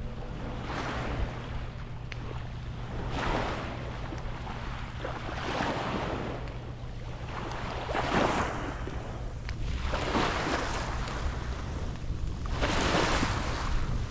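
Small waves washing onto the beach about every two to three seconds, with a steady low rumble of wind on the microphone.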